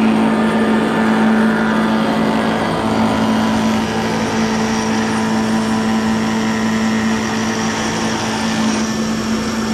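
Small belt-driven table spindle moulder running steadily with a constant hum, its cutter shaping an oak workpiece that is guided by a plywood template against a guide ring.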